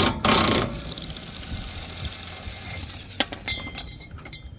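A loud, harsh burst of noise at the start, then metallic clinks with a short ring a little past the middle: steel tools and press parts knocking together during the wheel bearing press work.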